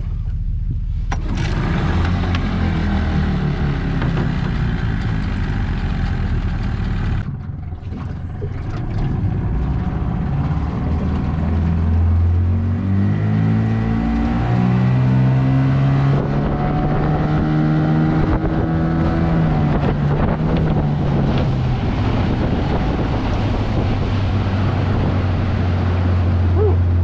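Mercury 25 hp two-stroke outboard motor running on a jon boat. After about seven seconds its note climbs over several seconds as it is throttled up, then holds steady at speed.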